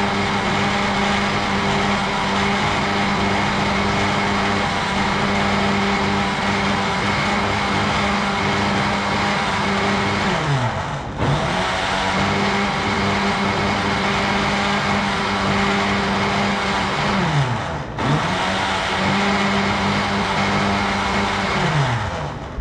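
Countertop blender motor running steadily at high speed, blending fruit with milk. Twice its pitch drops away as it is briefly switched off, then it speeds back up, and near the end it winds down and stops.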